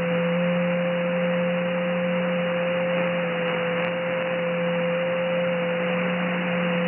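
Shortwave receiver audio in upper sideband on the 30-metre amateur band: a steady hiss of band noise, with a steady tone and a lower hum running through it.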